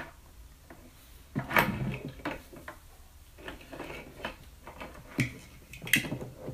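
Hand-handling noise from a Lulzbot Mini 3D printer extruder assembly being worked on: scattered clicks and knocks of small metal and plastic parts, the loudest about one and a half seconds in and near the end.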